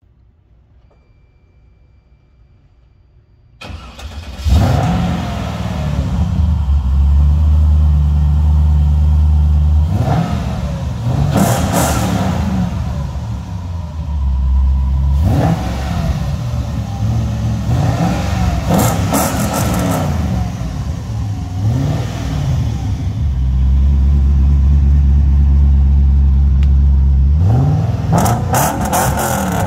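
Shelby Series 1's Oldsmobile Aurora-based V8 starting up about three and a half seconds in, then idling and being revved several times, each rev rising and falling in pitch, with steady idle between the revs.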